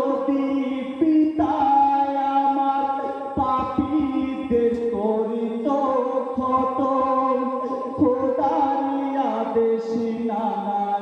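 A group of male voices chanting a marsiya, a mourning elegy, together in long drawn-out notes, one held phrase after another without a break.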